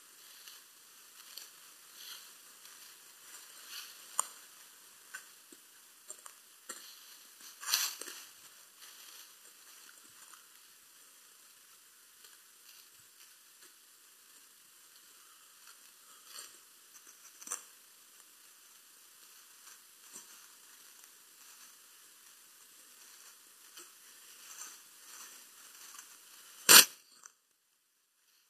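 Faint rustling and crackling of someone walking through low shrubs on a forest floor, with scattered light snaps of twigs. Near the end there is one sharp, loud click, after which the sound cuts off.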